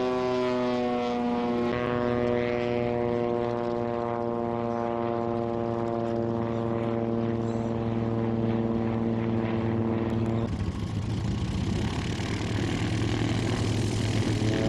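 Propeller engine of a biplane flying overhead, a steady drone that slowly falls in pitch. About ten seconds in it gives way to the rougher, noisier engine sound of a twin-engine propeller plane running on the runway.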